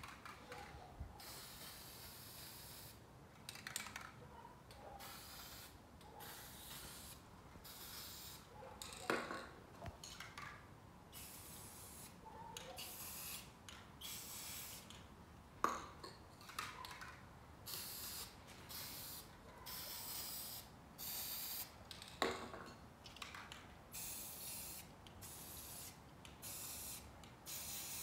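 Aerosol spray paint can sprayed in many short bursts of hiss, with gaps between them. Three sharper knocks stand out along the way.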